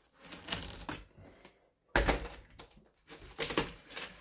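Ripe watermelon rind cracking and splitting open under a knife, with irregular crackling snaps and one sharp, louder crack about two seconds in. Cracking by itself like this as it is cut is the sign of a ripe watermelon.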